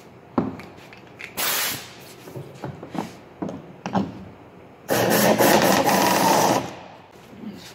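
Air-powered driver on a hose tightening the bolts of a foam canoe sponson. It runs in a short burst about a second and a half in, then a longer run of about two seconds near the five-second mark, with a hiss of exhaust air and a few handling clicks between.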